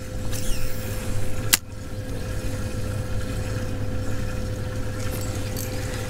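Electric trolling motor running steadily, a low hum with a thin steady whine over it. One sharp knock about a second and a half in.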